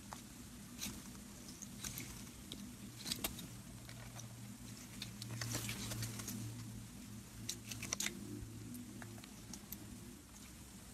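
Glittery slime being squeezed and stretched by hand, giving irregular small sticky clicks and pops, in clusters about three seconds in and again near eight seconds, over a faint low hum.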